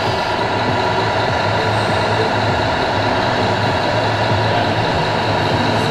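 Scale radio-controlled truck's sound module playing a steady diesel-truck engine rumble through its small speaker, against the constant background noise of a crowded hall.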